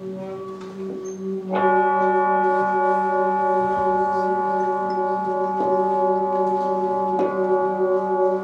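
Large Tibetan singing bowls ringing with a steady low hum. About a second and a half in, a bowl is struck with a mallet, and a bright cluster of higher ringing tones joins it and sustains. Lighter strikes follow at about five and a half and seven seconds in.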